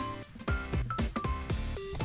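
Background music: a melody of short, quickly changing notes over a regular low beat.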